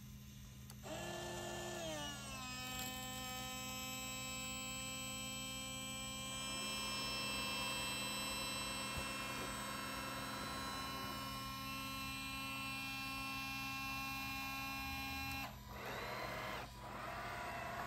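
Small electric pump motor of a radio-controlled model fireboat, whining steadily while it drives the water monitors. The whine starts about a second in, drops in pitch a second later as the pump takes up the load, holds steady, cuts off near the end, and is followed by a shorter wavering whine.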